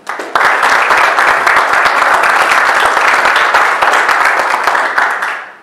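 Audience applauding, starting suddenly and dying away after about five seconds.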